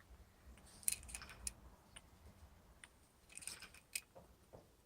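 Faint scattered clicks and brief rustles, small handling or movement noises, in clusters about a second in and again past the middle.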